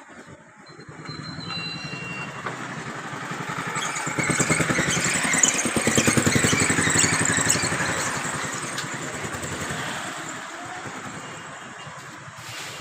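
A motor vehicle's engine passing by, growing louder over a few seconds, then fading away.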